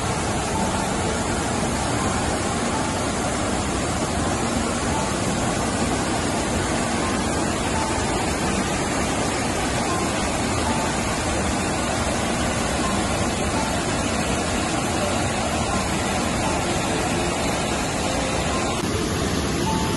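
Rocky stream in spate, white water rushing over and between boulders in a steady, loud rush.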